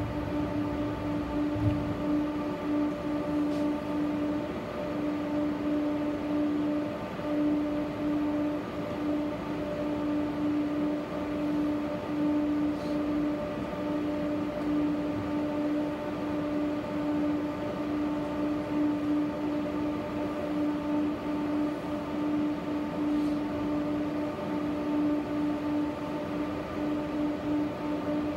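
Tram heard from inside the passenger car: a steady hum with one strong constant tone and fainter tones above it, over an even running noise. A faint tick comes about every ten seconds.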